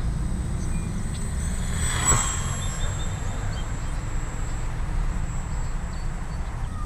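Stock electric motor and propeller of a small E-flite P-40 Warhawk 300 RC model plane, swelling to a brief close pass about two seconds in, over a steady low wind rumble on the microphone.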